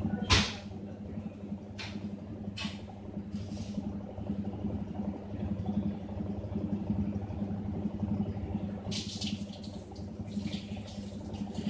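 Godrej WT620CFS 6.2 kg top-load washing machine running its spin program: a steady motor hum with water rushing through the machine, louder near the end. A sharp click sounds just after the start, with a few fainter ticks over the next few seconds.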